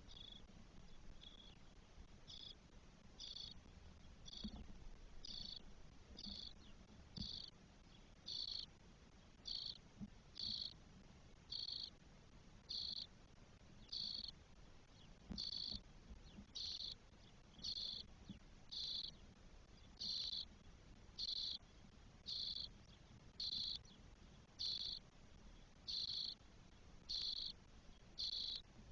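Spotless starling nestlings calling in the nest: short raspy calls repeated about once a second, faint at first and louder toward the end.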